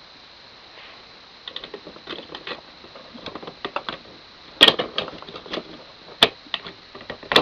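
A run of irregular light clicks and knocks starting about a second and a half in, with sharper knocks a little past halfway and again near the end.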